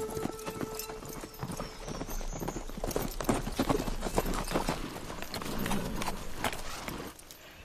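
Hoofbeats of several horses ridden fast along a dirt track, a dense irregular clatter that dies down near the end.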